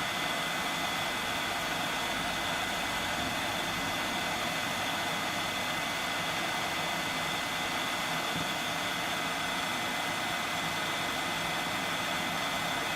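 Yihua 959D hot air rework station's handpiece blowing steadily with its air flow turned up: a continuous rush of air with a thin, steady high whine, heating a surface-mount component to desolder it.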